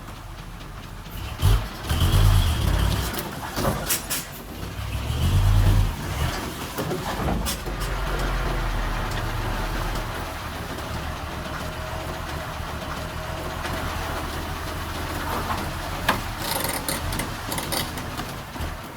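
Diesel engine of heavy earthmoving machinery running, surging loudly twice in the first six seconds with a few sharp knocks, then running steadily.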